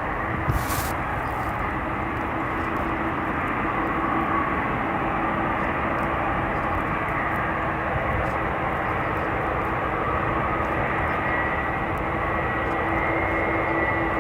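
Boeing 747 jet engines running steadily: an even rush of noise with a steady whine held on a low and a high pitch.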